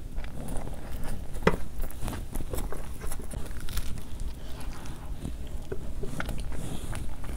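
Close-miked eating sounds: a person chewing, with many short mouth clicks and smacks, one stronger about one and a half seconds in.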